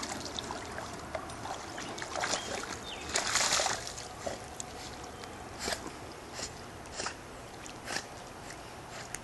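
Golden retriever paddling in pool water: soft sloshes and small splashes from its strokes, with one longer, louder splash a little over three seconds in as it passes the pool ladder.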